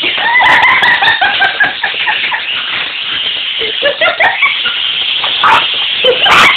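Chihuahua–Jack Russell terrier mix puppies yipping and whimpering excitedly in quick, high-pitched runs of short cries, with a clatter near the end.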